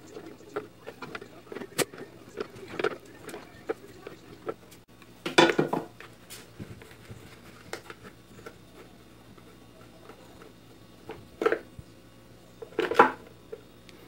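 Clicks, knocks and scraping of pliers and hands working a blender's plastic drive coupling loose from the rusty motor shaft, with louder clattering bursts about five seconds in and near the end.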